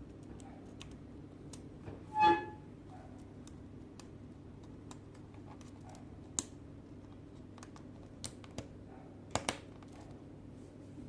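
Laptop keyboard keys clicking now and then over a steady low hum. About two seconds in there is a short pitched squeal, the loudest sound, and a few sharper clicks come near the end.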